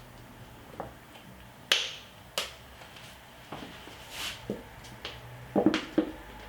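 Several sharp, light clicks and taps, spread unevenly over a few seconds, from kitchen containers being handled as honey is readied for a blender.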